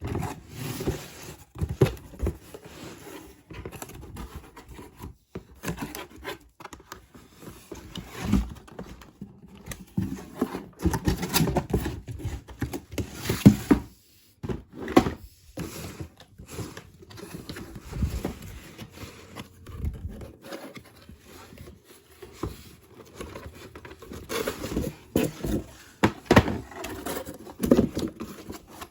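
Irregular handling noises of a sneaker unboxing: rustling, scraping and light taps from a shoebox and sneakers being handled. The sound drops out twice near the middle.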